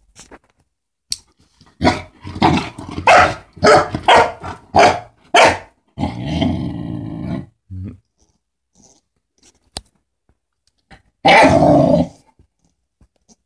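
A puppy barking at a toy in play: a quick run of about seven short barks, then a growl lasting about a second and a half, and one louder bark near the end.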